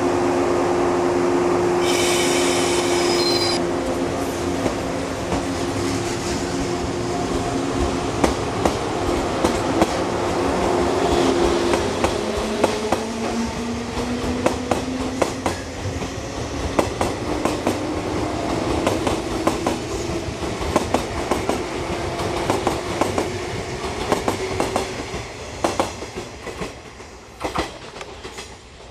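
A 169 series electric multiple unit pulls out and gathers speed. Its traction motors whine and rise in pitch, and the wheels clack over the rail joints. There is a brief high-pitched squeal about two seconds in, and the sound fades near the end as the train draws away.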